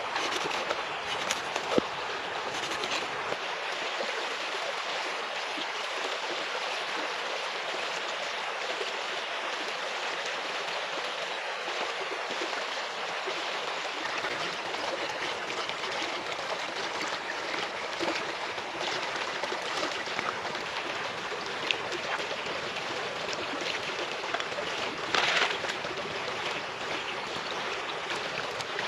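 Shallow stream running over stones, a steady rushing babble. A few light knocks near the start and one brief sharper noise about 25 seconds in.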